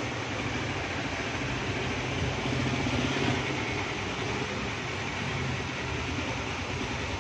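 Steady mechanical whir and low hum, a little louder about two to three seconds in.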